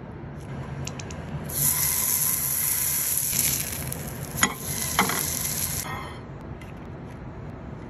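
Crab cake sizzling in hot oil in a frying pan: a loud hiss that starts about a second and a half in and cuts off at about six seconds. Partway through, two sharp clicks of a metal spatula against the pan.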